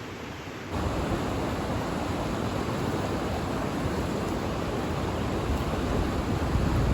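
Steady rush of river water over rapids, with wind buffeting the microphone. The noise jumps louder suddenly less than a second in and gets heavier and gustier near the end.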